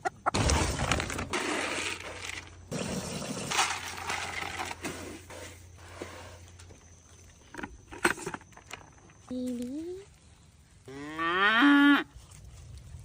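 A cow mooing twice: a short rising call about nine and a half seconds in, then a longer, louder moo that climbs in pitch and holds near the end. Scraping and rustling noises fill the first few seconds.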